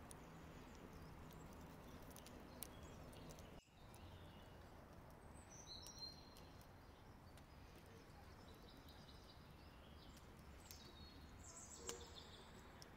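Near silence: faint outdoor background with a small bird chirping briefly twice, about halfway through and again near the end, and a few faint clicks.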